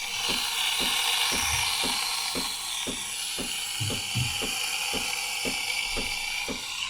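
Breville Barista Express steam wand hissing steadily as it steams and froths milk in a pitcher, with the machine's pump pulsing in a regular knock about three times a second.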